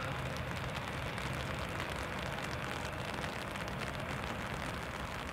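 Steady rain falling, with drops ticking close to the microphone.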